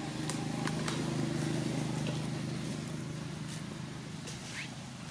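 A motor vehicle engine running nearby, its steady low hum swelling about a second in and then slowly fading, as of a vehicle passing by. A few light clicks and a short rising squeak near the end.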